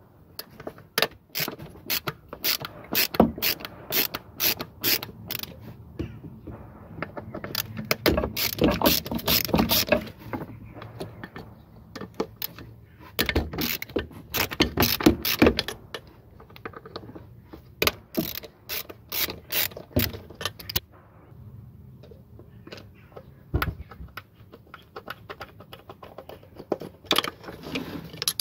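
Ratchet driver with a Torx T40 bit clicking in repeated bursts as the throttle body's screws are undone, with light tool and metal handling between the bursts.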